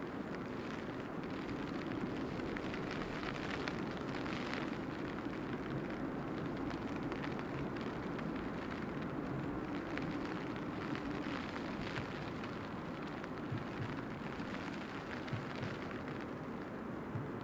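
Steady rain: a constant hiss with scattered faint drop ticks over an even low rumble.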